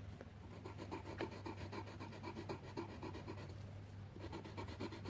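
Coloured pencil scribbling on paper in quick back-and-forth strokes, several a second, with a short pause about three and a half seconds in.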